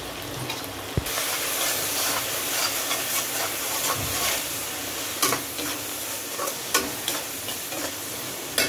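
Tomato-onion masala frying in oil in a pan, sizzling as a slotted spatula stirs and scrapes through it. The sizzle gets louder about a second in as the freshly added chilli powder is stirred into the oil, and the spatula knocks sharply against the pan a few times.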